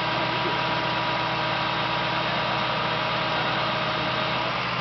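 A vehicle engine idling steadily: an even hum with several held tones, one of which drops out near the end.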